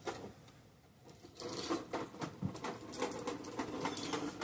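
Small irregular clicks and scratches of wire leads and spade connectors being handled and pushed onto the terminals of a new HVAC run capacitor, starting about a second and a half in.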